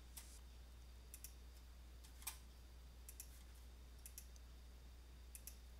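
Near silence over a steady low electrical hum, with a handful of faint, scattered computer mouse clicks. The clearest click comes about two seconds in.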